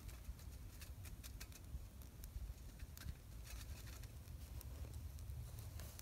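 Twig fire crackling in a small Firebox folding stove, with many irregular sharp pops and ticks. A low rumble sits underneath.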